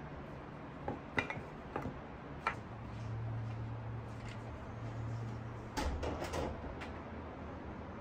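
A glass and dishes knocking on a wooden tray: a few light knocks as the glass is set down, then a short clatter about six seconds in as the tray is lifted. A steady low hum runs through the middle.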